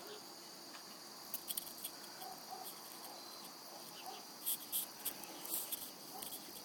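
Faint, steady, high-pitched insect chirring, with a few soft clicks and rustles now and then.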